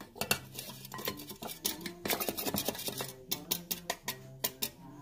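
Background music, with a spoon repeatedly clicking and tapping against a container and bowl while baking powder is measured out.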